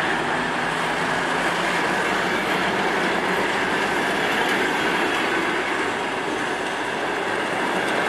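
Passenger coaches of a departing suburban train rolling past close by, their wheels running on the rails in a steady rush of noise. The low drone of the DM62 diesel locomotive hauling them fades away in the first second or two as it draws ahead.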